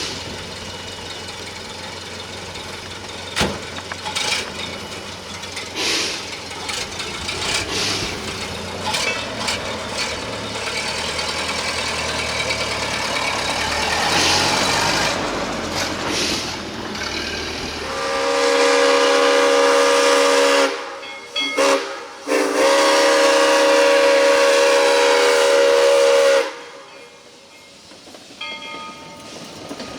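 Narrow-gauge steam train running with clicks and knocks from the wheels and cars, then the locomotive's steam whistle sounding loud: a long blast, two brief toots, and a second long blast.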